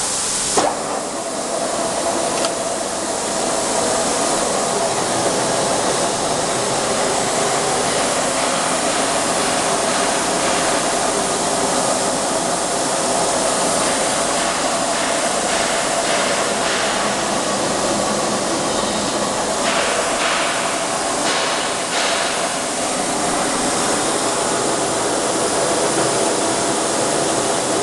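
16D25 screw-cutting lathe running, its motor and headstock gearing giving a steady whirring hum with a faint held tone. A few short clicks come about two-thirds of the way through.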